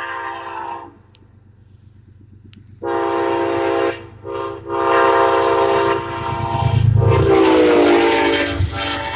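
Amtrak locomotive's multi-tone air horn sounding a grade-crossing pattern. One blast ends, there is a pause, then a long blast, a short one, and a final long blast whose chord drops in pitch as the locomotive passes close by. The rush and rumble of the passing train rise under the last blast near the end.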